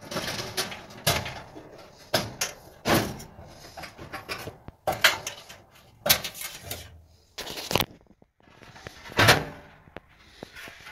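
Sheet-metal clanks, scrapes and clicks as a Samsung electric dryer's heating element housing is handled and its wire connectors worked at the terminals, part of replacing a shorted heating element. The knocks and rattles come irregularly, with the loudest about nine seconds in.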